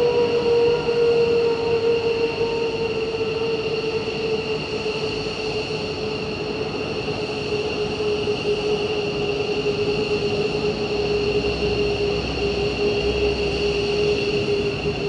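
Parked F-15 Eagle fighter jets' turbines running on the ramp during a cold start. The loud, steady whine has a strong hum that sags slightly in pitch, with thinner high tones above it, and a low rumble joins about eleven seconds in.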